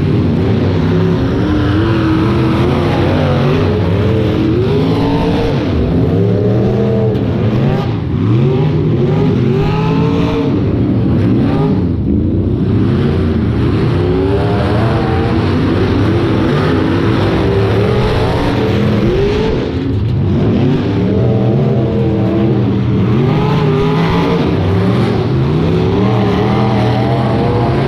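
Engines of several rear-wheel-drive demolition derby cars revving and accelerating at once. Their pitches rise and fall and overlap throughout.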